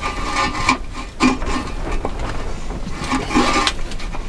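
Rustling and scraping of a multi-cell tray of freshly potted seedlings being shifted about and set down among other potted plants, with irregular rubbing and knocking sounds.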